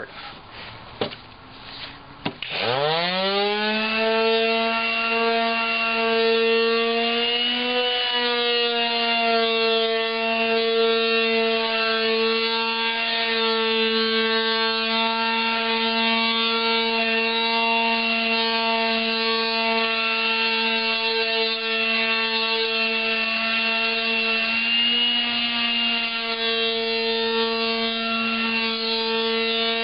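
Electric palm sander starting up about two and a half seconds in, its pitch rising quickly, then running steadily on the wooden drawer top with coarse sandpaper, a steady hum with a higher whine. A few light knocks and rubs come before it starts.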